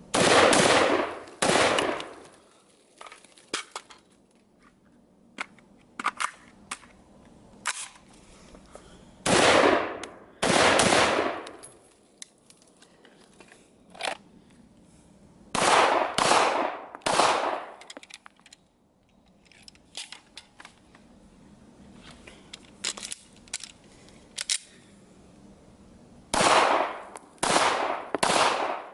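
About ten gunshots in four groups, two or three shots to a group spaced under a second apart: a 10-inch AR-15 pistol in 5.56 fired twice near the start and twice about ten seconds in, then a 9mm Shadow Systems MR920 handgun fired in strings of three. Small clicks of gun handling lie between the groups.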